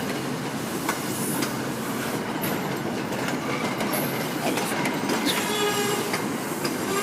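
MBTA commuter rail train with Rotem bilevel coaches rolling through the station, a steady rumble with rail clicks. About five seconds in, a squeal from the wheels or brakes starts as the train slows to a stop.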